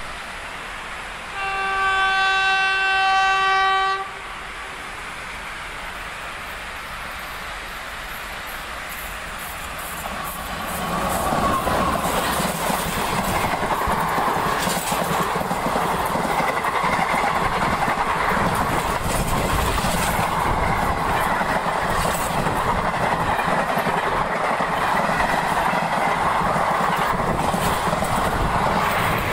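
Train horn sounding one steady blast of about two and a half seconds. Then, from about ten seconds in, a fast train running past at over 90 km/h: a continuous loud rush and rumble of wheels on rail, with irregular clicks.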